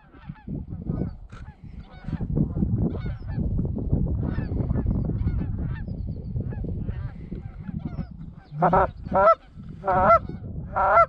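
Geese honking: a flock's scattered, distant honks throughout, then a quick series of loud, close honks in the last few seconds as it comes in. A low rushing noise sits under the calls through the middle.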